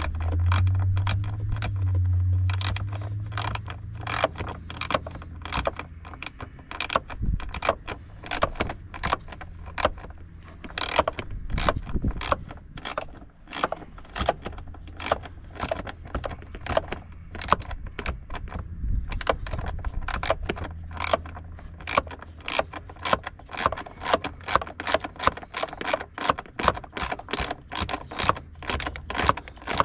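A ratcheting wrench clicking steadily, about two or three clicks a second, as it tightens the nut on a car battery's terminal clamp. A low hum sounds underneath for the first few seconds.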